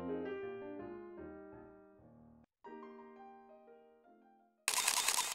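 Soft background piano music, fading out with a short break about two and a half seconds in. Near the end a brief, loud burst of noise cuts in.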